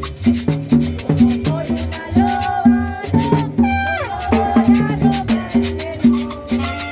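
Latin dance music, salsa-like, with a steady bass line, shaker or maraca percussion and melody lines over a regular beat.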